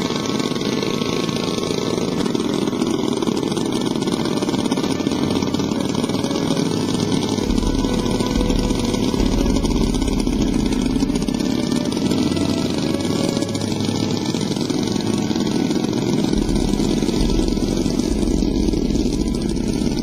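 Engines of a large remote-control model bomber running steadily, a loud continuous buzz, with a low rumble that comes and goes twice.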